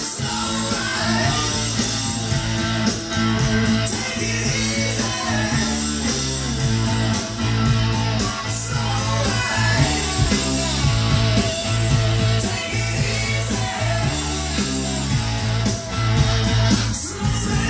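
Rock music with guitar, played back over bookshelf loudspeakers driven by Blue Circle BC22 monoblock power amplifiers.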